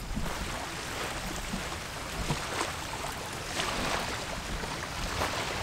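Small waves washing on the shore: a steady hiss with a few brief surges.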